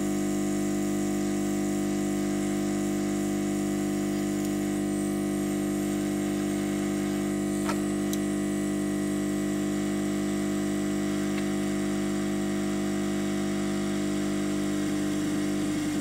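Hot-air rework gun running, its blower giving a steady, even hum while it heats solder on a circuit board until it softens. A faint click about eight seconds in.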